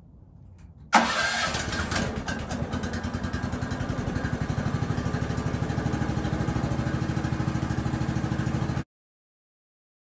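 Woodland Mills portable bandsaw sawmill's engine starting with a sudden loud catch about a second in, then settling into a steady, evenly pulsing idle. The sound cuts off suddenly near the end.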